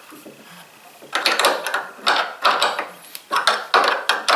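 Short metallic scraping and clinking strokes, two to three a second after a quiet first second, as jammed nuts are turned to back a threaded steel stud out of a knurled aluminum knob.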